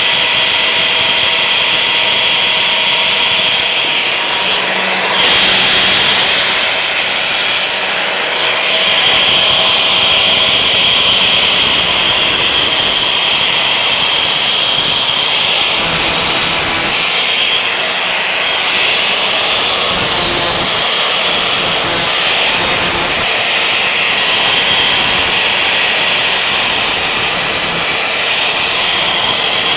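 Corded angle grinder running steadily while grinding steel on an oil-tank pig roaster: a continuous high whine and grinding hiss that shifts slightly as the disc bears on the metal.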